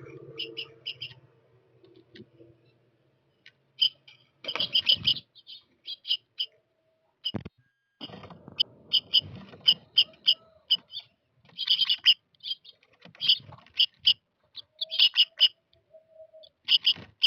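Small birds chirping in quick clusters of short, high chirps, broken by brief pauses, with a couple of knocks.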